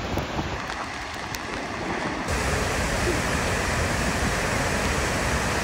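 Steady rushing roar of the Gullfoss waterfall, starting abruptly with a cut about two seconds in. Before it there is a quieter stretch of outdoor noise with a few faint clicks.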